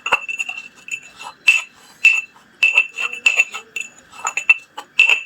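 Repeated metallic clinks at an uneven pace, each ringing briefly: a hard utensil striking inside a metal container while chicken-feed pellets are crushed into powder for fishing bait.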